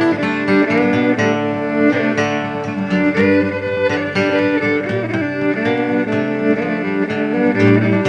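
Instrumental opening of a blues song: acoustic guitar playing along with a fiddle that slides between notes.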